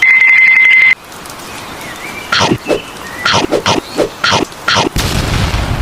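A steady high beep lasting about a second, then a hiss with a run of quick falling chirps, and a short burst of noise near the end: edited-in comedy sound effects.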